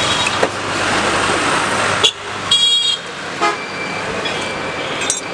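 Street traffic noise with a short vehicle horn toot about halfway through. A few sharp knocks, one just before the horn, fit the butcher's knife striking the wooden log block.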